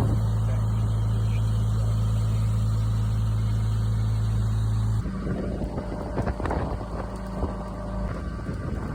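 A heavy truck engine running steadily at a low, even hum. About five seconds in it cuts off abruptly to a rougher, uneven rumble with wind on the microphone and the engine fainter.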